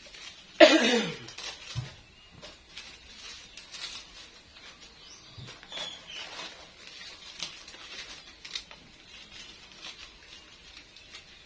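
A loud cry falling steeply in pitch about half a second in, then soft scattered crinkles and taps of banana leaves being folded and handled.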